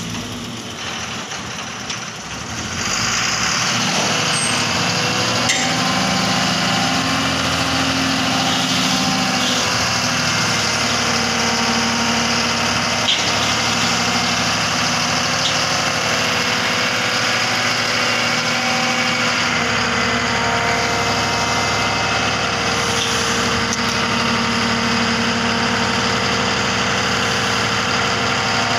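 Tipper truck's diesel engine running steadily under raised revs to drive the hydraulic hoist as the loaded bed tips up. The engine gets louder about three seconds in and then holds an even note.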